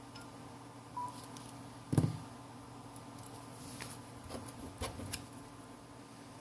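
Small clicks and one sharp knock of tools and phone parts being handled on a work surface while prying a smartphone screen loose. A short beep sounds about a second in.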